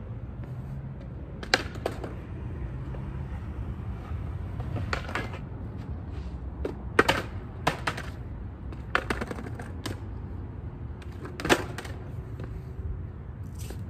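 Skateboard rolling on a hard court surface with a steady low wheel rumble, broken by a string of sharp clacks as the board's tail snaps and the deck lands and hits the ground during trick attempts.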